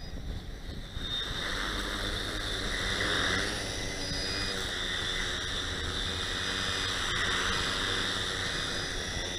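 Tricopter's three electric motors and propellers buzzing with a high whine as it hovers close by. It grows louder about a second in and swells and eases as the craft moves.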